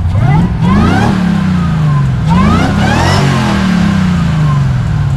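Plymouth Barracuda's engine revved twice while standing, the pitch climbing sharply and sliding back down to idle each time.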